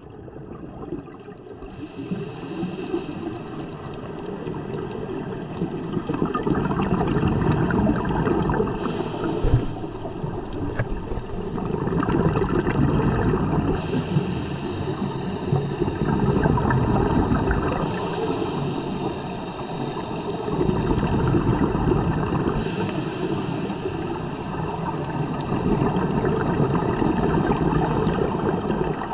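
Muffled underwater sound picked up through a camera housing: a steady churning rush of water, swelling and fading every four to five seconds with hissing bursts of a scuba diver's exhaled regulator bubbles.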